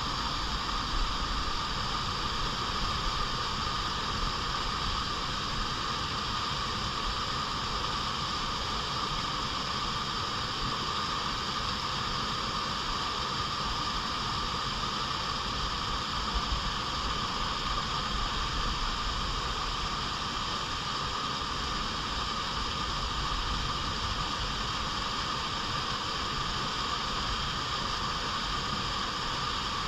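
Clear stream flowing steadily, a continuous even rush of water.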